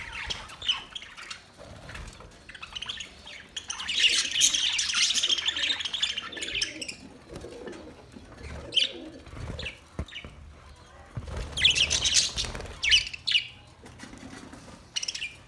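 Parrot chirping in irregular bursts: a long run of rapid high chirps about four seconds in, a few single chirps, and another quick flurry past the middle.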